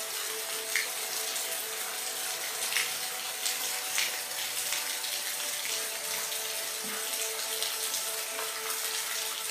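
Steady rain falling, an even hiss with a few louder drops ticking close by. A faint steady hum sits underneath.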